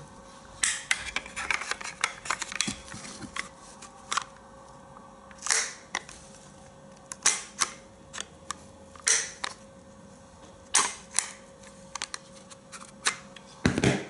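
Sauer 404 rifle parts being handled during disassembly: irregular sharp clicks and clacks of metal and hard polymer parts knocking together, with a short scrape about five and a half seconds in and a louder knock near the end.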